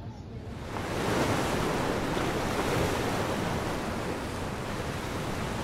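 Steady rushing of wind and ocean surf, with wind on the microphone. It swells about a second in and eases slightly near the end.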